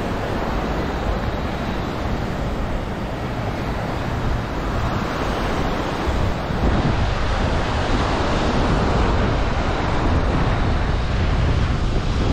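Small sea waves breaking and washing up a sandy beach, with wind buffeting the microphone. The wash grows louder a little past halfway through.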